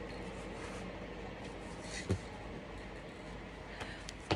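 Quiet room tone with two brief clicks or taps, one about two seconds in and one near the end.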